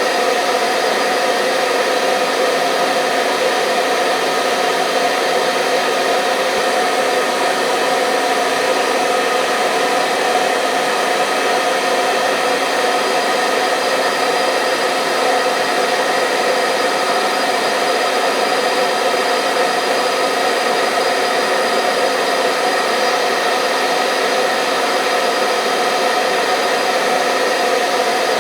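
Hair dryer running steadily on one setting: a constant rush of blown air with a steady motor whine, unchanging throughout, played as a sleep sound for newborn babies.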